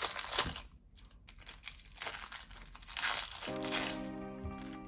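Thin plastic film wrapper crinkling and tearing in bursts as it is peeled off imitation crab sticks. Background music comes in about three and a half seconds in.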